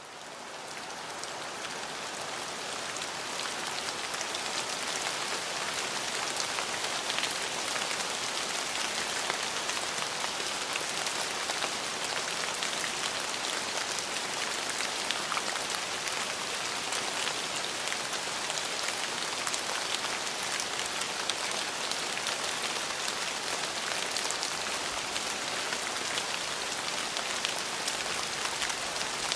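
Steady rain falling, an even hiss scattered with the small ticks of individual drops hitting a surface. It fades in over the first few seconds, then holds steady.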